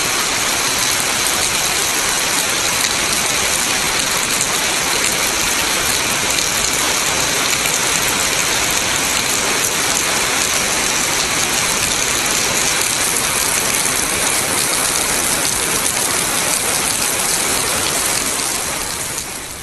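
Heavy tropical downpour: rain pouring steadily in a loud, even hiss, fading near the end.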